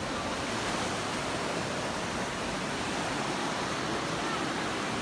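A shallow, rocky river rushing steadily over stones, an even watery hiss.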